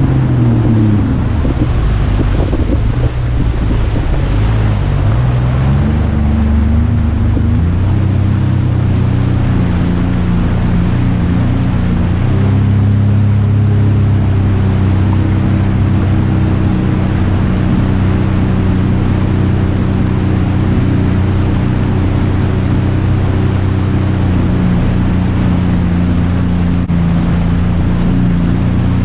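Sea-Doo Fish Pro personal watercraft's Rotax three-cylinder engine running under way, with wind and water noise. Its pitch dips in the first few seconds, climbs back as the throttle opens, and settles into a steady cruise a little before halfway through.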